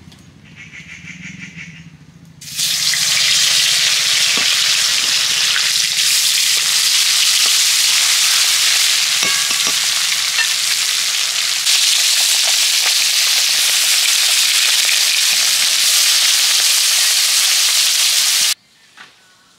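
Rupchand fish pieces frying in hot oil in a metal kadai: a loud, steady sizzle that starts about two and a half seconds in and cuts off sharply near the end.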